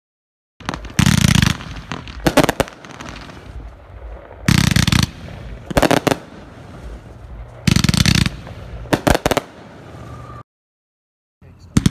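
Pink Storm 48-shot 500 g consumer firework cake firing. Three rounds of loud reports, each a heavy boom followed about a second later by a few sharp cracks.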